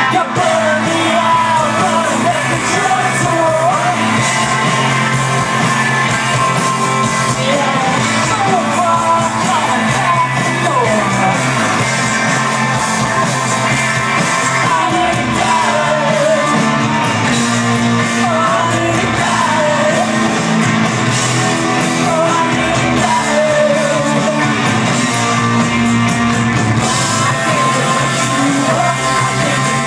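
Rock band playing live, heard from within the crowd: a woman singing over electric guitar and bass.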